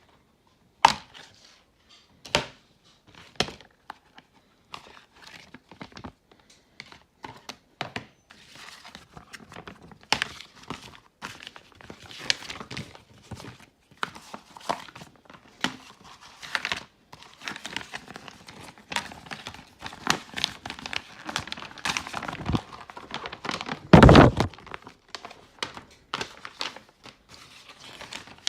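Packaging being handled and torn open while DVDs are unboxed: crinkling and tearing of wrapping, with many small clicks and knocks of cases and box. One louder thunk comes late on.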